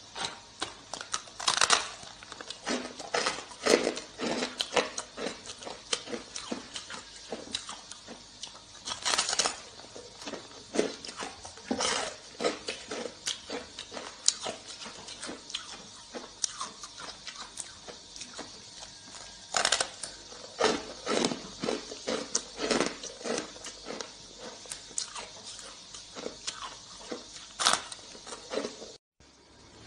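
Hard, crunchy frozen scraped ice being bitten and chewed close to the microphone: irregular sharp crunches and crackles. The sound drops out briefly near the end.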